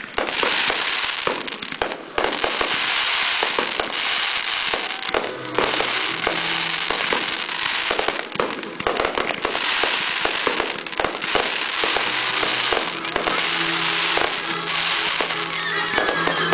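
Aerial fireworks display: shells launching and bursting in quick succession, with continuous crackling and many sharp reports.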